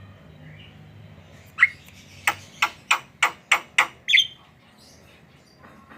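Javan myna calling: a harsh note, then a quick run of about seven sharp, loud notes at roughly three a second, ending with a squawk.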